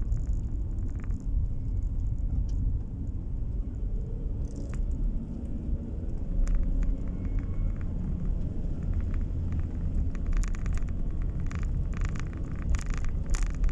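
A car driving, heard from inside the cabin: a steady low rumble of engine and tyres on the road, with scattered short clicks and rattles that come more often near the end.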